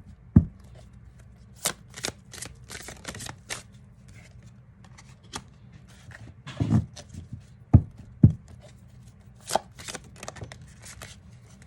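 A deck of reading cards being shuffled and handled, with irregular quick snaps and rustles and a few soft thumps.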